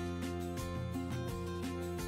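Background instrumental music with held notes over a steady beat.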